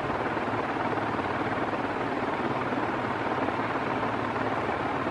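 48-inch Din Wai (DEMCO) industrial ceiling fan running steadily on its high setting: the motor hums and the blades whoosh as they move the air.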